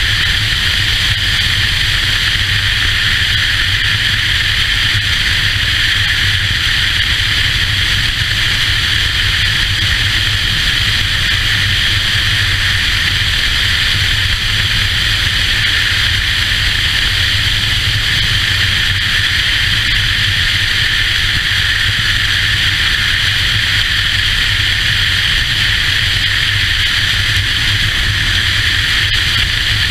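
Motorcycle riding at steady highway speed: constant wind rush over the microphone with the low drone of the engine underneath, unchanging throughout.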